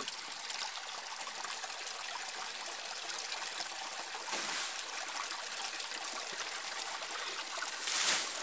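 Steady hiss of a small stream trickling, with two brief louder swells of noise, about halfway through and near the end.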